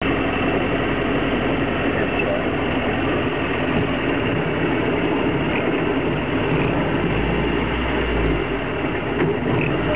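A 1933 Austin Seven saloon on the move, heard from inside the cabin: its small 747 cc side-valve four-cylinder engine running steadily under road and wind noise. A deeper low rumble swells for a second or so about seven seconds in.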